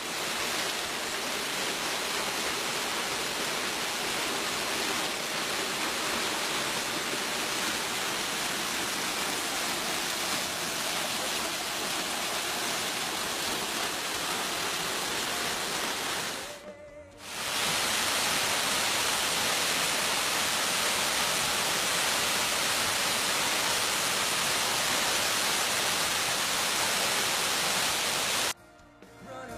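Waterfall: a steady rush of falling water. It breaks off briefly about 17 seconds in, comes back louder and hissier, and cuts off again just before the end.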